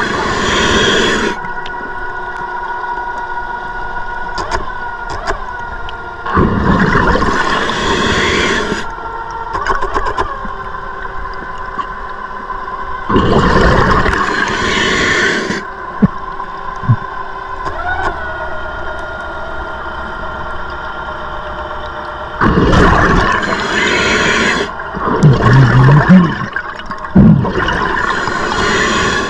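Scuba diver breathing underwater through an open-circuit regulator: five loud rushes of exhaled bubbles a few seconds apart, with quieter breathing and a steady hiss between them and a brief low tone near the end.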